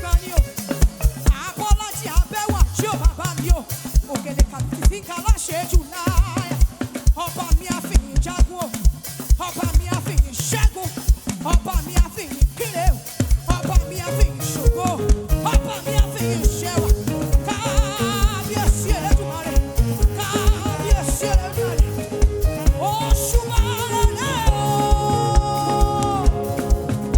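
Live band playing upbeat African gospel praise music with a steady drum beat and melodic lines above it.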